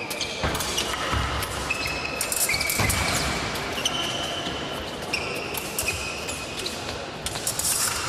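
Fencers' footwork on the piste in a large hall: quick stamps and thuds of feet with shoe soles squeaking in several short held tones.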